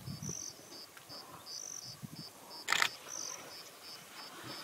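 Insects chirping in savanna grass: a steady high pulse about three times a second, with a higher trill breaking in now and then. A short, sharp burst of noise about two and three-quarter seconds in is the loudest sound.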